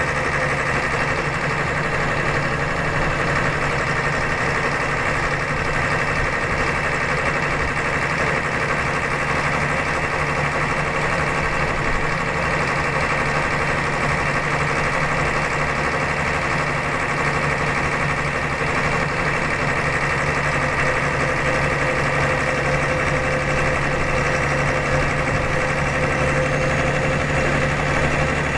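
Scania DS9 8.5-litre six-cylinder rear-mounted turbo diesel of a Scania K92CR coach running steadily, heard from inside the passenger cabin.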